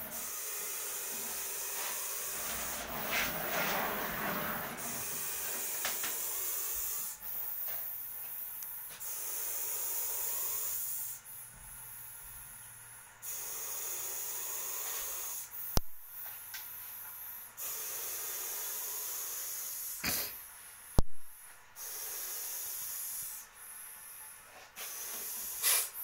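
A cornered snake hissing in long, repeated breaths, the hiss starting and stopping every second or two. Two sharp knocks come in the second half.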